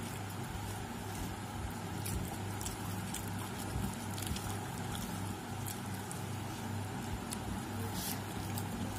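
Hands eating biryani from plates: soft squishing of rice mixed by the fingers and a few faint clicks of fingers on the plates, over a steady low hum.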